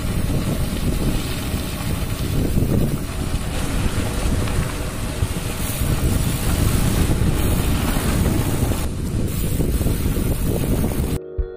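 Wind buffeting the microphone of a camera riding along on a mountain bike on a dirt road: a loud, steady rush that cuts off suddenly near the end.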